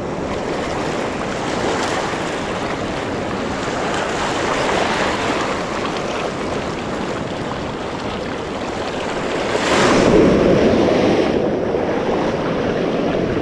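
Small ocean waves breaking and washing in over reef rocks and sand, a steady surging hiss of surf. About ten seconds in, a bigger wave washes in close by and is louder for a second or two before it eases off.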